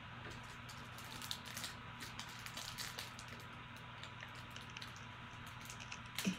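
Foil wrapper of a Panini Prizm football card pack crinkling faintly as it is handled, a scatter of soft crackles and ticks.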